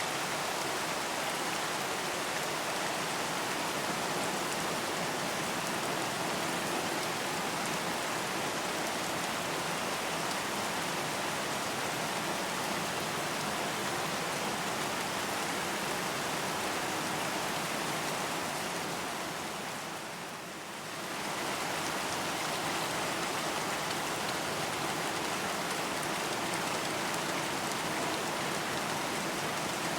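Steady rain falling on a surface, an even hiss of drops that fades briefly about two-thirds of the way through, then comes back at the same level.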